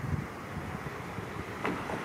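Wind buffeting the microphone over the steady rush of a river, with one short, faint click about one and a half seconds in.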